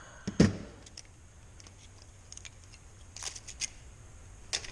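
Loose metal pieces being handled and pulled apart by hand: one knock about half a second in, then scattered light clicks and clinks, with a small run of them about three seconds in.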